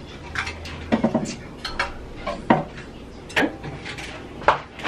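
Cups and dishes clinking and knocking against each other and the shelf as they are lifted out of a kitchen cupboard: about seven short, irregular clinks.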